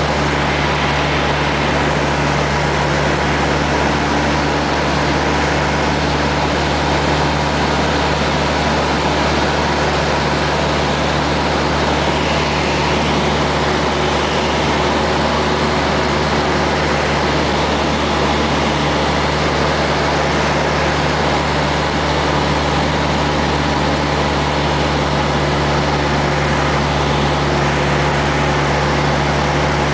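Cessna light aircraft's engine and propeller droning steadily in cruise flight, heard inside the cabin: a constant low hum under an even rush of noise.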